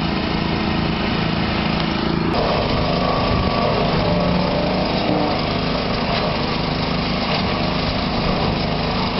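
Petrol engine of an Eliet wood chipper running steadily as conifer branches are fed into it. The sound changes about two seconds in and stays that way.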